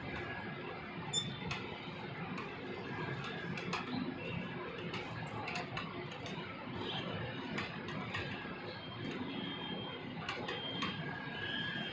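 Manual hand winch of a telescopic light mast being cranked, giving off many short irregular clicks over a steady background hum.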